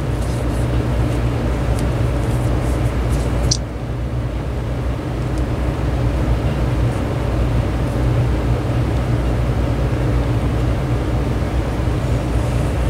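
Steady low mechanical hum and rumble. Faint light clicks in the first few seconds, with a sharp tick at about three and a half seconds.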